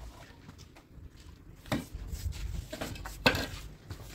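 Plastering tool knocking and scraping on a freshly cemented wall: a few short strokes, the loudest a little after three seconds in.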